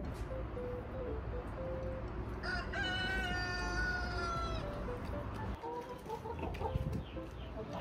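A rooster crowing once, a single held call of about two seconds, with short chicken clucks before and after it.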